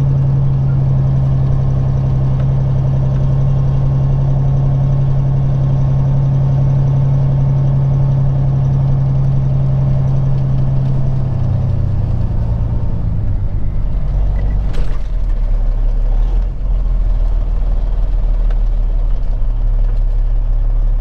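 Peterbilt 379 semi truck's diesel engine heard from inside the cab, running steadily as the truck crawls through a fuel stop lot. About twelve seconds in, its steady drone drops to a lower pitch as the truck eases off.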